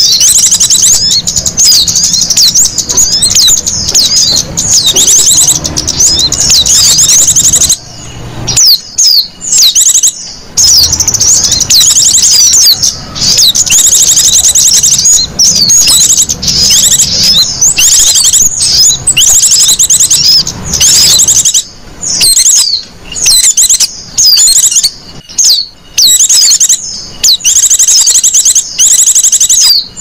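Bird-lure recording of small songbirds calling: dense, rapid, high-pitched chirps and trills, several birds overlapping, thinning out briefly a few times.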